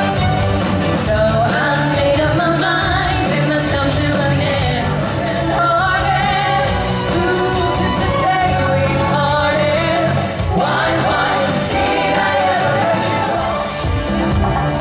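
Live pop song from a stage show: female singers on handheld microphones singing over an amplified backing track with a steady beat.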